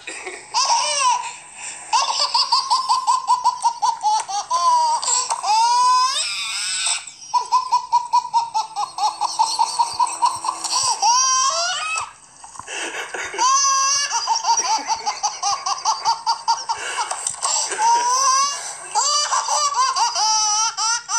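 Baby girl laughing hysterically: long runs of rapid, high-pitched laughs, broken by a few brief rising squeals as she catches her breath.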